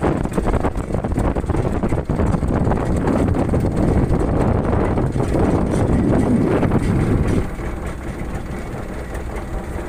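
Wind buffeting the microphone on a moving boat at sea, over the rush of water along the hull; it eases off somewhat about seven and a half seconds in.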